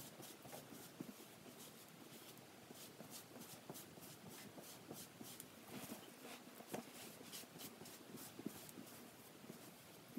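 Faint, repeated scratchy strokes of a StripHair Gentle Groomer rubber brush drawn through an English Cocker Spaniel's dry, fluffy coat, several short strokes a second.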